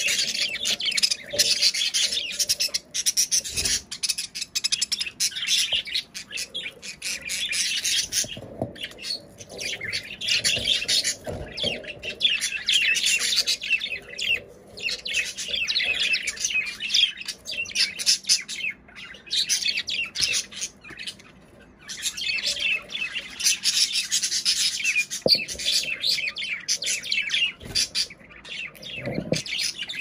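Budgerigars chattering and warbling: a fast, high, continuous twittering of chirps, broken by a few short lulls.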